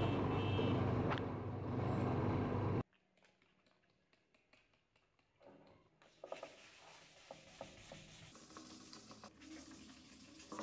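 A metal lathe running steadily as it spins a bike front-fork shock-absorber part, cutting off abruptly about three seconds in. After a near-silent gap, faint dry scratching and rubbing of hand-sanding a metal fork tube, with a few small clicks.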